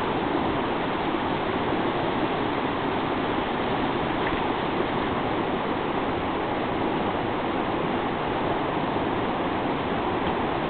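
Shallow river rushing over rocks: a steady, even rush of water.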